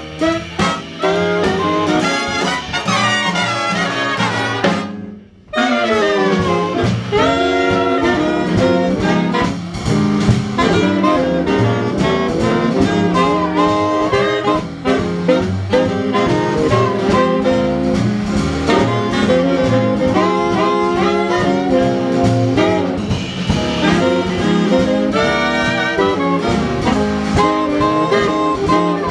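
Jazz big band playing live: trumpets, a trombone section and saxophones, including a baritone saxophone, in full ensemble. The band cuts off for a brief moment about five seconds in, then comes back in together.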